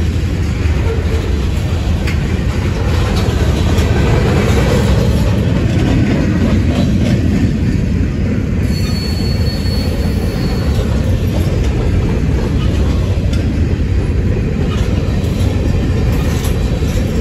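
Freight train of tank cars and covered hopper cars rolling past, a steady heavy rumble of steel wheels on rail with scattered clicks. About halfway through, a thin high wheel squeal sounds for about two seconds.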